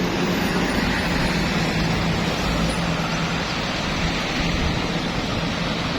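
Road traffic passing: a motor vehicle's engine with a steady low hum over an even noise.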